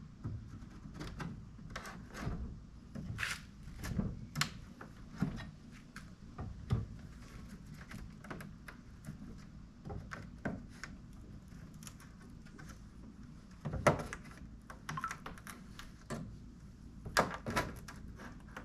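Irregular wooden knocks and clicks as a nailed-in piece of wood is worked loose from a wooden dresser, with a louder knock about fourteen seconds in and a quick run of knocks near the end.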